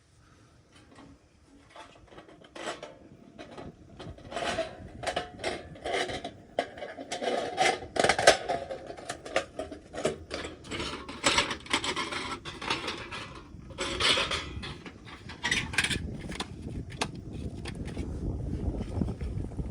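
Irregular clinks, knocks and scrapes of metal and wood being handled, as the parts of a homemade Picogrill-style fire stand and its firewood are moved about. The handling is busiest in the middle, and a low rumble builds near the end.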